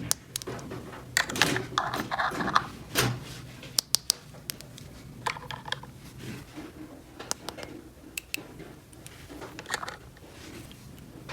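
Small plastic toy pieces being handled, with irregular clicks, taps and light knocks, a few of them quick runs of clicks.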